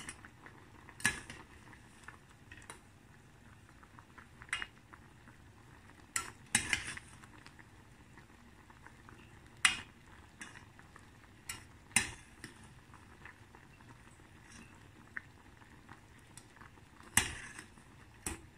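A metal spoon stirring simmering coconut-milk ginataan in a pot, clinking against the pot about nine times at uneven intervals over a faint steady bubbling.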